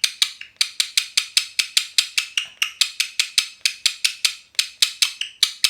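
Indian ringneck parrot's beak clicking rapidly and evenly, about six sharp clicks a second, as she preens her feathers.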